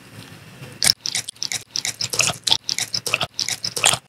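Bubble gum being chewed, a big wad of it, in a mouth with metal braces: wet, sticky smacks and clicks, several a second, starting about a second in.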